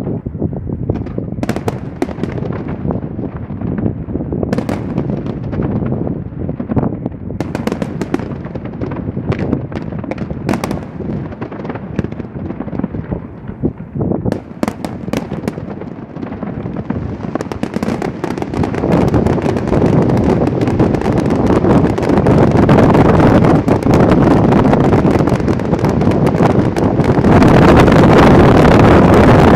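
Fireworks going off: many sharp bangs through the first half. From about halfway these merge into a dense, continuous noise that grows louder toward the end.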